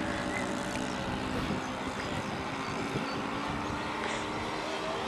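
Twin-engine radio-controlled seaplane flying past, its engines and propellers running at a steady pitch.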